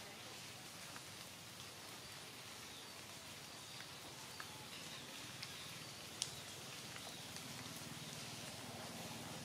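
Steady light rain falling on leaves, with a few scattered sharp drips, the loudest about six seconds in.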